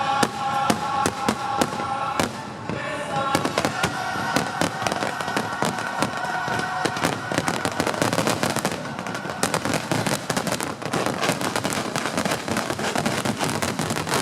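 Fireworks going off in rapid bangs and crackles over music with held notes. The bangs come thicker in the second half as the music fades under them.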